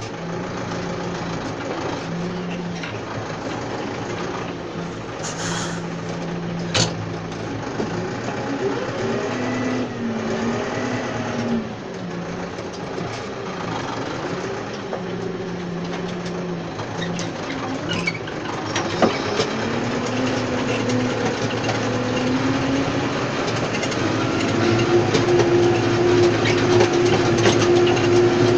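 Tractor engine running while pulling a tine stubble cultivator, its pitch rising and falling as the revs change, with a few sharp knocks. It settles into a steadier, louder note near the end.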